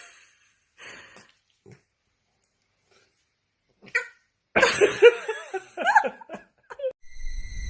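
A dog barking in a few short, separate barks, then a busier run of barks and yelps in the second half.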